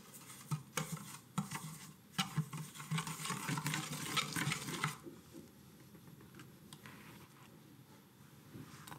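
A whisk beating egg yolks and sugar in a nonstick saucepan: quick wet clicking and scraping against the pot, stopping about five seconds in.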